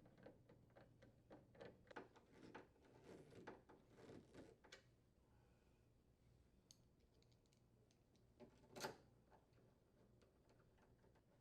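Faint clicking and scraping of hinge mounting screws being threaded and tightened with a nut driver, with one sharper click about nine seconds in.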